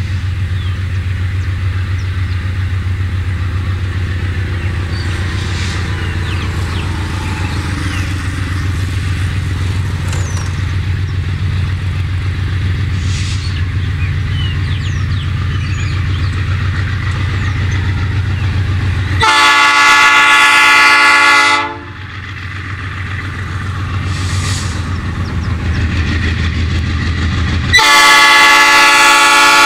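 Approaching diesel freight train led by GE C30-7 locomotives: a steady low engine drone that grows louder as it nears. Two long multi-tone air-horn blasts sound about two-thirds through and again near the end, each louder than the engines.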